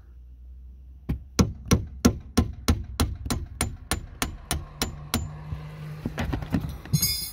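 Hammer tapping the threaded top of a Smart ForFour rear shock absorber's shaft to drive it down through its top mounting hardware. The sharp blows come about three a second, then turn lighter, and a short rattle follows near the end.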